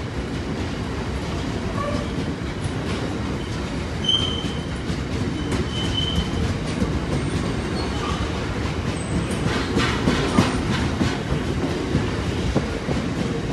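Oil tank wagons of a freight train rolling past over a level crossing: a steady heavy rumble of wheels on rail, with a couple of brief high wheel squeals and a burst of clattering over the joints about two-thirds of the way through.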